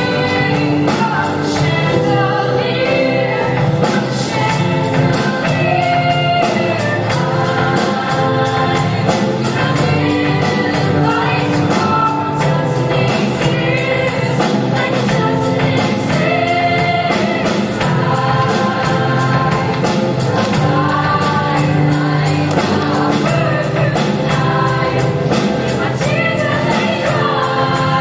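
Show choir singing in parts, accompanied by a live band whose drums keep a steady beat.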